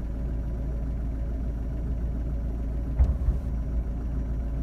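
Artillery ammunition exploding at a depot: a steady low rumble, with one sharp blast about three seconds in.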